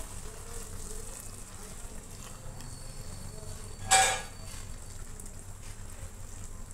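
Chicken and onions sizzling in a pot of shallow liquid while being stirred with a silicone spatula, with one brief, louder knock about four seconds in.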